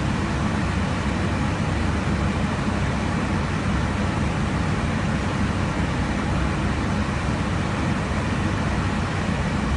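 Steady rushing cabin noise of an aircraft in cruise flight, with a low, even hum underneath.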